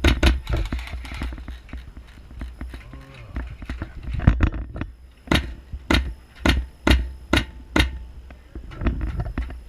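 Airsoft gun firing single shots as sharp snaps: a few scattered early on, then a steady run of about six, roughly two a second, in the second half.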